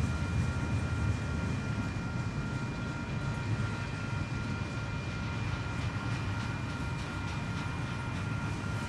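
Double-stack intermodal freight train rolling past, a steady low rumble of wheels on rail, with a few faint steady high tones above it.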